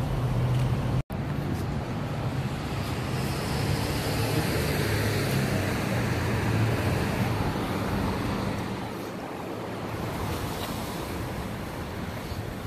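A car engine running as a vehicle moves off, under wind rushing on the microphone; the noise swells through the middle and eases near the end. The sound cuts out for an instant about a second in.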